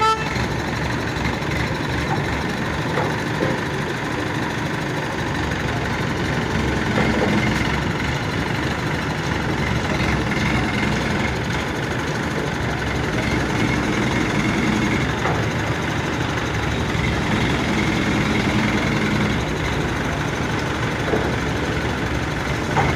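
Diesel engines of hydra cranes running steadily during a heavy lift.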